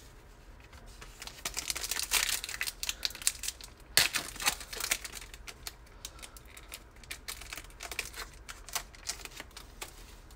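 Foil wrapper of a Panini Revolution trading-card pack crinkling and being torn open. A dense run of crackles and rips comes in the first half, with the sharpest rip about four seconds in, then lighter crinkling as the cards are pulled out.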